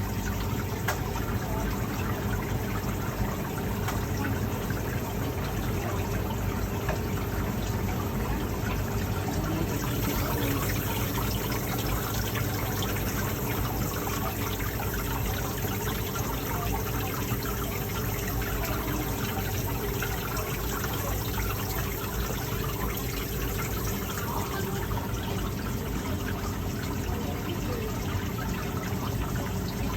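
Water running and trickling steadily for the whole stretch, over a faint steady low hum.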